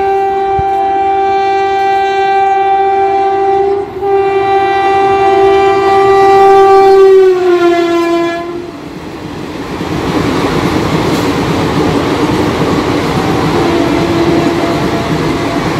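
Locomotive horn of a passing express train: one long blast, a short break about four seconds in, then a second long blast that falls in pitch as it ends. Then the steady rumble of the coaches running past on the rails.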